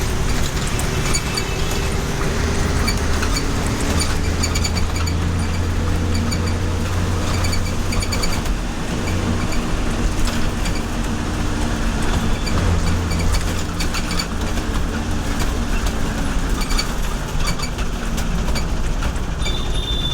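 Mumbai BEST city bus engine running, a steady low drone whose pitch rises and falls a little, with light rattling clicks throughout.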